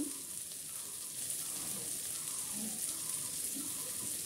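Chopped onion and garlic frying in mustard oil in a steel kadai, a steady, fairly quiet sizzle.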